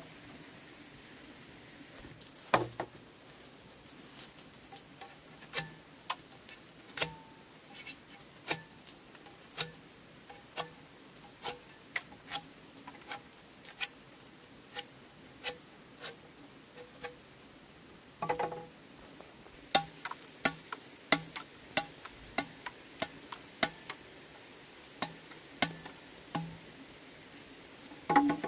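Machete blade chopping green bamboo: a steady run of sharp clacks, a little over one a second, with a few heavier knocks of bamboo about two seconds in, near the middle and at the end.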